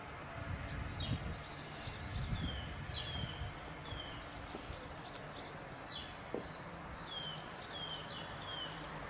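Songbirds calling: repeated short notes that slide steeply down in pitch, every second or two, over a steady background hiss. A low rumble comes in the first few seconds, and a single click about six seconds in.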